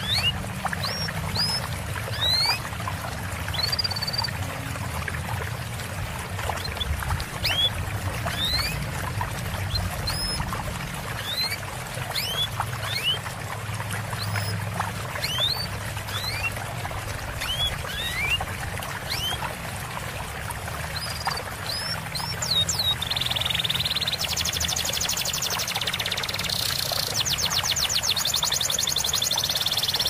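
Small songbirds calling over steadily trickling water, mixed for training cage birds: thin, high, rising chirps repeat about once a second. In the last several seconds a fast, high trill of rapidly repeated notes comes in over them.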